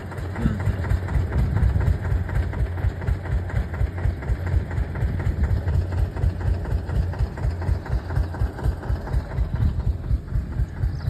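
Diesel engine idling with a low, even thumping, about three beats a second.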